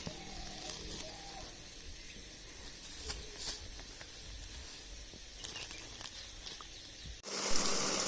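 Quiet outdoor ambience with a few faint ticks, then a heavy downpour of rain suddenly comes in loud about seven seconds in.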